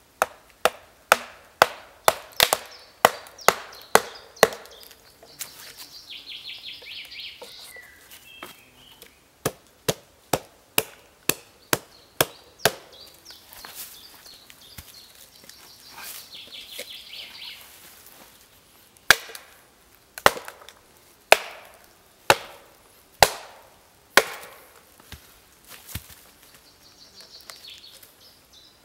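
Wooden pegs being driven into holes in a log with hammer blows, sharp woody knocks. They come in quick runs of about two a second, and in the last third as slower, single blows about a second apart.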